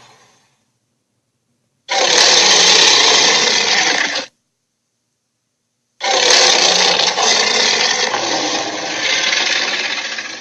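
Two animated tyrannosaur roar sound effects (Sharptooth): a roar of about two and a half seconds that starts and stops abruptly, a pause of nearly two seconds, then a longer roar of about four and a half seconds that fades out right at the end.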